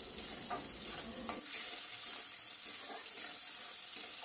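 Spice paste and vegetable stems sizzling in oil in a wok, with a steady hiss and soft scrapes of a spatula stirring against the pan: the masala is being fried down until the oil separates.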